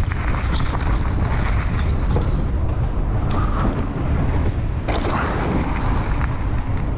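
Mountain bike riding fast downhill: wind buffeting the microphone and tyres rolling over dirt and wooden planks, with a few sharp clicks and rattles from the bike.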